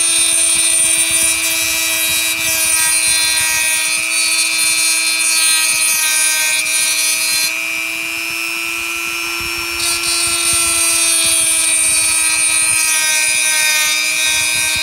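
Dremel rotary tool running with a steady high whine, its conical sanding bit grinding a chamfer on the outer edge of the cut end of a copper-nickel brake line under light pressure, deburring it before bubble flaring. The higher grinding hiss over the motor drops out for about two seconds in the middle, then returns.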